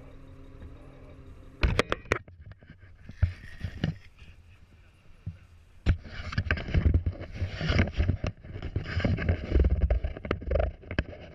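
Wind buffeting an action camera's microphone as a low rumble, with knocks and rustling from the camera being handled against a padded nylon jacket. The rustling and rumble grow rougher about halfway through.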